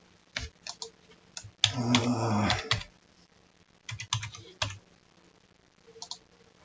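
Typing on a computer keyboard: a few single keystrokes, a loud dense run of fast keystrokes lasting about a second, then short clusters of keys a couple of seconds later.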